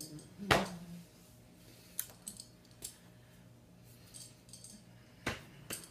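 A few sharp taps and clicks of hands striking and brushing against each other and the body during sign language, the loudest about half a second in, over a faint steady low hum.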